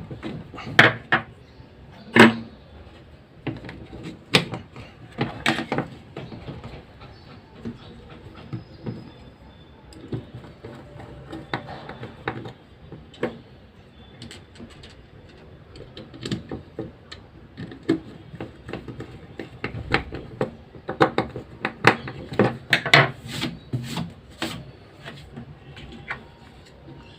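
Scattered clicks, taps and knocks of small plastic and metal hair-trimmer parts being handled during repair work, at irregular intervals, with clusters about two seconds in, about five seconds in, and again from about twenty-one to twenty-four seconds in.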